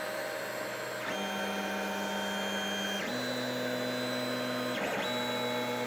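3D printer's stepper motors whining while printing, each move a steady tone that jumps to a new pitch every second or two.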